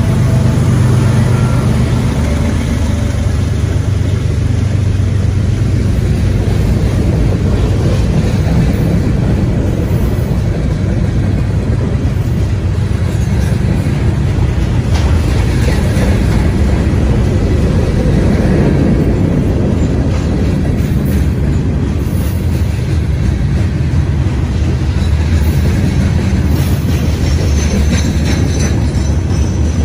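CSX freight train passing close by. Its diesel locomotives go by at the start, then covered hopper cars roll past with a steady loud noise of wheels on rail.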